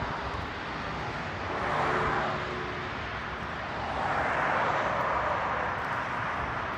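Outdoor traffic noise: a vehicle passing briefly about two seconds in, then a longer swell of passing-vehicle noise from about four seconds, over a steady hiss.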